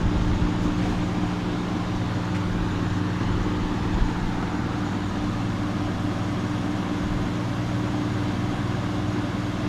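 Carrier Desertmaster air conditioner running loud and steady: a rush of fan air over a low, even hum of several tones. The owner puts the loudness down mostly to its powerful fan.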